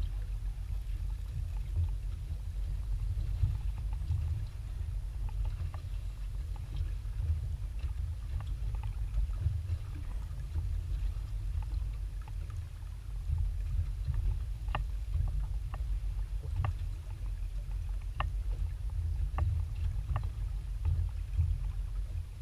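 Steady low rumble of wind on the microphone and water lapping against a small aluminium boat's hull, with a scattering of short, sharp ticks in the second half.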